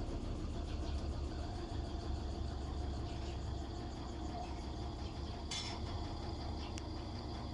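Mabe washing machine spinning its drum at 700 rpm: a steady low rumble and hum, with one brief sharp click about five and a half seconds in.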